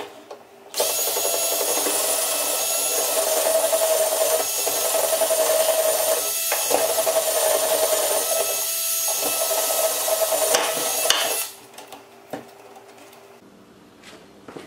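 Cordless drill running steadily for about ten seconds, drilling into the wooden boards, its pitch dipping briefly twice under load before it cuts off. A few light knocks follow.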